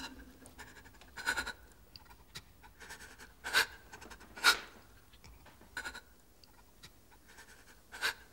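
A person breathing heavily: several short, breathy breaths spaced a second or two apart, the loudest about four and a half seconds in.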